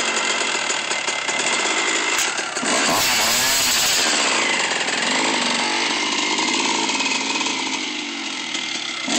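Dirt bike engine running, with a rev whose pitch rises and falls about three seconds in.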